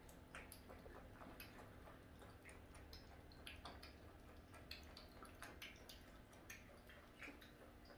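French bulldog puppy feeding from a plastic bowl: faint, irregular clicks and ticks of its mouth and the food against the bowl.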